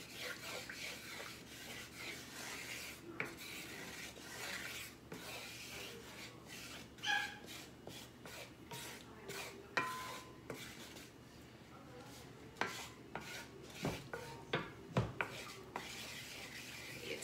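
Spatula scraping and stirring flour and pan drippings in a cast-iron skillet: an irregular rasping, with a few sharp knocks of the spatula against the pan, the loudest in the second half.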